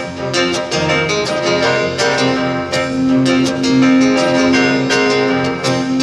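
Acoustic guitar picked in a live instrumental break, quick plucked notes with a long held note added about two seconds in.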